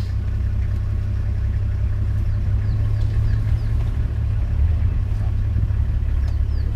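Safari game-drive vehicle's engine idling with a steady low rumble.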